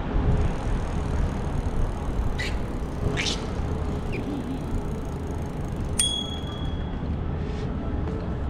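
Steady low rumble of wind and tyres from a bike rolling along pavement, with two short high rasps a couple of seconds in. About six seconds in, a single bicycle bell ding rings out and fades within about a second.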